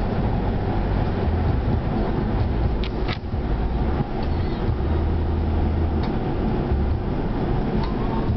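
Wind rushing and buffeting through an open car window, over steady road noise, as the car coasts downhill. A couple of brief clicks come about three seconds in.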